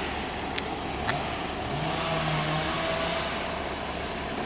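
An engine running steadily, with two sharp clicks about half a second and a second in.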